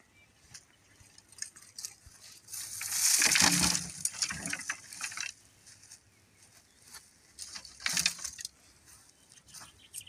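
A bundle of wooden tomato stakes rattling and clattering as it is set down on the ground, loudest about three seconds in, with a shorter rattle of the sticks near eight seconds.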